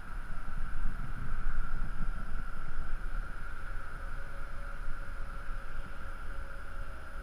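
Wind buffeting an action camera's microphone high on a skyscraper face: a gusting low rumble over a steady higher hiss.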